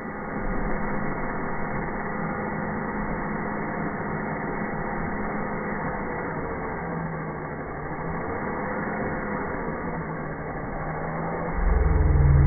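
Cordless drill with a half-inch spade bit boring into a battery box: a steady motor drone that wavers in pitch. A louder, deeper surge comes near the end and lasts about two seconds.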